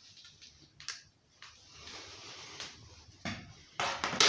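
Chainsaw guide bar being fitted onto the saw body: scattered light clicks, then a few louder scrapes near the end.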